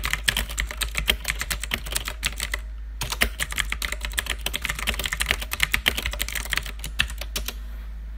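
Typing on a computer keyboard: a fast run of key clicks, a brief pause about two and a half seconds in, then more typing that stops near the end. A steady low hum sits underneath.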